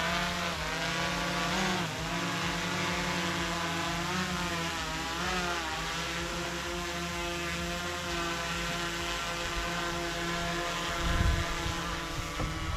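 A vehicle engine running steadily, its pitch drifting gently up and down as the revs change. A low rumble joins it about eleven seconds in.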